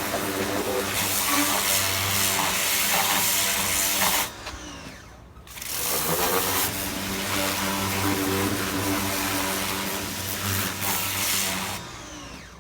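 Electric pressure washer running and spraying: a steady motor hum with a hiss of water. About four seconds in the motor cuts out and winds down, then spins back up a second and a half later and runs until it winds down again near the end, as the spray trigger is released and squeezed.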